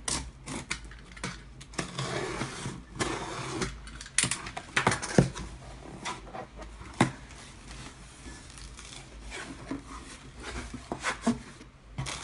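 Cardboard shipping box being slit open with a utility knife and its flaps pulled back: scraping and rustling of cardboard and tape with scattered sharp knocks, then plastic air-pillow packing crinkling under a hand near the end.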